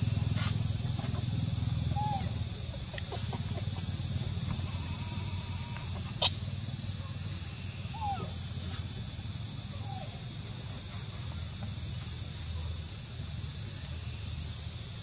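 Insects droning steadily in a high, even buzz, over a low rumble. Faint short rising chirps come about once a second for the first ten seconds, with a few brief lower calls.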